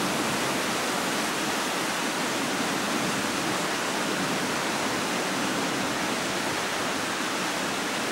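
Waterfalls in a rocky gorge below: a steady, even rush of falling water.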